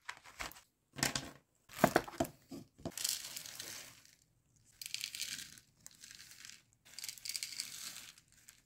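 Plastic zip-lock bag crinkling as it is handled, with a string of sharp clicks and taps in the first three seconds. Then small disc beads are poured from the bag into a clear plastic organizer box, a dry rustle in three stretches about a second long each.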